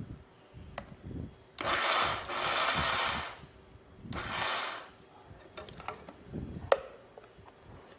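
Ordinary countertop blender run in two short bursts, the first about two seconds and the second under a second, grinding a thick, sticky date mixture. A few light clicks and a sharp knock follow.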